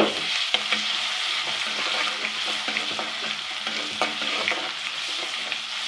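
Ginger-garlic paste sizzling steadily in hot oil in a pan, with a few light taps of a spoon as it is stirred.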